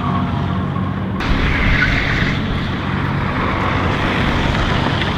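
Small kei car engine running hard with a steady drone as the car slides on hard PVC rings fitted over its rear tyres, the rings hissing across the asphalt instead of a tyre squeal. The sound changes abruptly about a second in.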